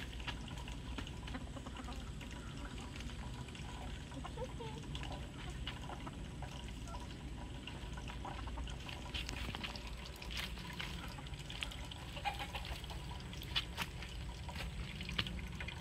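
Chickens pecking and scratching at feed on dry ground: scattered light clicks and rustles, thicker in the second half, with a couple of soft short clucks, over a steady low rumble.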